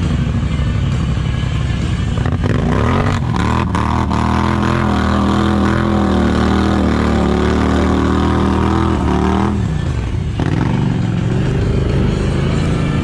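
ATV engine revving: it climbs to high revs about three seconds in, holds there for about six seconds, then drops back to a lower, rougher running sound.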